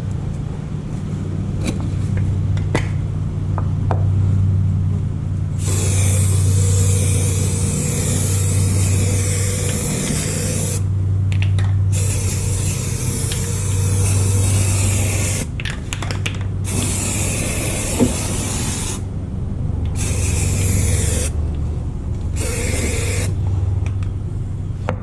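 Aerosol can of Rust-Oleum undercoating spraying in five hissing bursts with short pauses between them, starting about six seconds in; the longest burst lasts about five seconds. A steady low hum runs underneath throughout.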